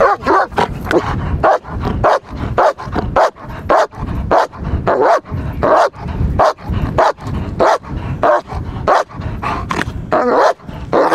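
German Shepherd protection dog barking in a fast, steady string, about two to three barks a second: a guarding bark that holds the man in place without biting.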